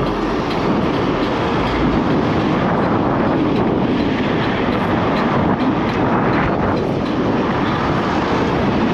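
Steady loud rushing noise of wind and road on an action camera's microphone while riding an electric scooter at speed.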